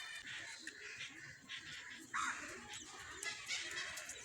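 Breathy sniffing and nose noises from a person trying to make herself sneeze, with a sudden louder breathy burst about two seconds in.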